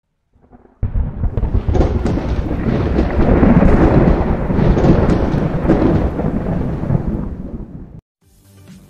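Thunder rumble sound effect with crackles. It comes in suddenly about a second in, stays loud, slowly fades and then cuts off near the end.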